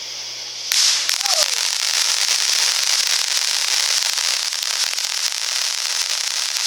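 Consumer firework going off: a dense, rapid crackling over a steady hiss, starting suddenly about a second in.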